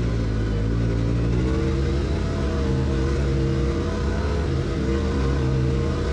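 A vehicle engine running under way, its pitch drifting gently up and down with the throttle.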